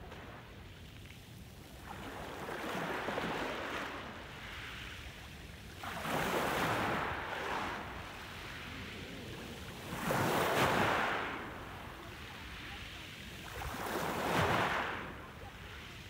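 Small sea waves washing onto a pebble beach: four surges of surf over the shingle, each swelling and fading, about every four seconds.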